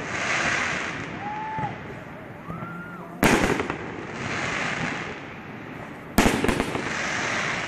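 Fireworks display. The crackle of a shell burst from just before runs on at the start, then two loud aerial shell bursts go off, about three seconds in and about six seconds in. Each is followed by a couple of seconds of crackling from its glittering stars.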